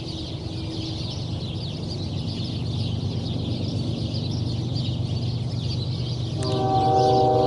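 Train passing with a steady low rumble that slowly grows louder, then a locomotive's multi-note air horn starts about six seconds in and holds.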